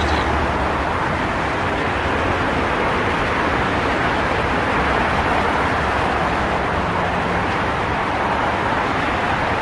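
Steady highway traffic: a continuous, even wash of tyre and engine noise from many vehicles, with no single car standing out.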